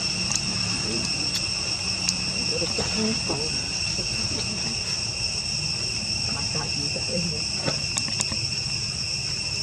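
Insects in the surrounding forest giving a steady, high-pitched drone, with a few faint short clicks and chirps over it.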